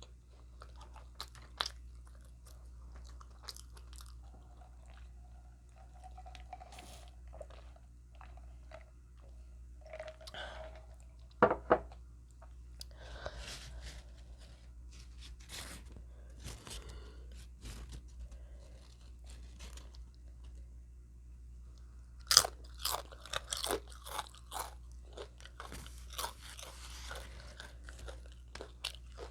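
A person chewing and crunching food in the mouth, with scattered crunches and a run of louder ones near the end.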